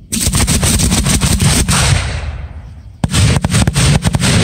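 Fireworks going off in rapid volleys of sharp bangs with a low rumbling echo beneath. One quick string of reports fades after about two seconds, and a second string starts about three seconds in.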